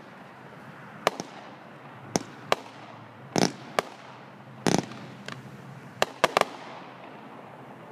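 Consumer aerial fireworks launching and bursting overhead: about a dozen sharp bangs at uneven intervals, with a couple of longer, heavier booms midway.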